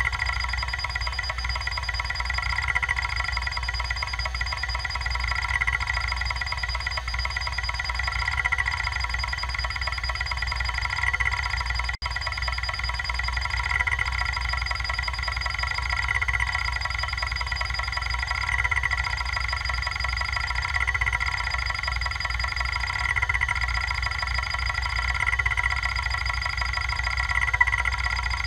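Kalok KL-320 MFM hard drive with its heads seeking continuously: a steady whine of several high tones over a low hum, the highest tone breaking off briefly about every two to three seconds.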